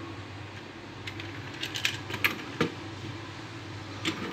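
Small clicks and taps of a die-cast metal Majorette toy police car being handled and set into a plastic display rack, with one sharper knock about two and a half seconds in, over a faint low hum.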